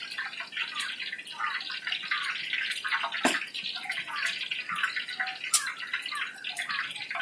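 Oil sizzling and spattering steadily in a wok over a wood fire, with a couple of sharp clicks, about three and five and a half seconds in.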